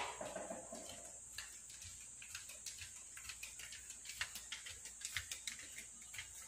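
Faint, scattered light taps and clicks from someone moving about and handling things while cleaning a room, over a steady high hiss. A brief thin tone sounds at the start.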